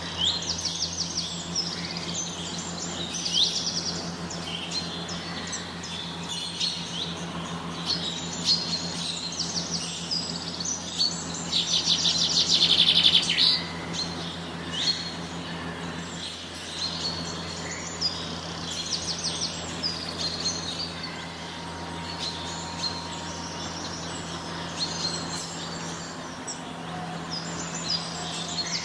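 Many small caged birds in an aviary chirping and twittering together, with a louder run of rapid trills about halfway through. A steady low hum runs underneath.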